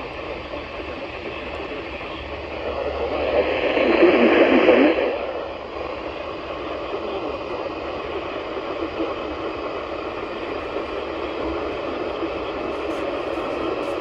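Static hiss from the speaker of a handheld Eton-made L.L.Bean emergency weather radio, with no station audio coming through. The hiss swells louder for a couple of seconds about three seconds in, then settles back.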